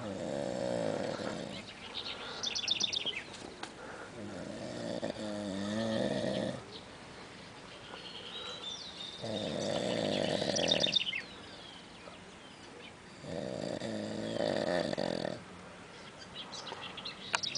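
A sleeping man snoring: long rattling snores of about two seconds each, coming about every four seconds. The snoring is unusually strong.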